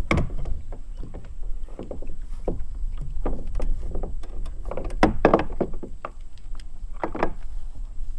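Irregular knocks and splashing water at the side of a kayak as a blue catfish is hauled aboard by hand, over a steady low rumble. The loudest splashes come about five seconds in and again about seven seconds in.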